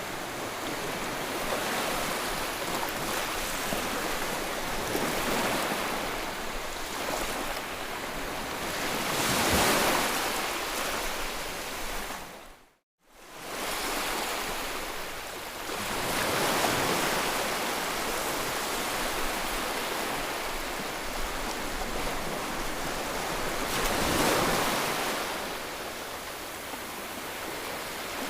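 White noise for soothing a colicky baby: a steady rushing hiss that swells and fades every several seconds, like surf. It drops out completely for a split second about halfway through.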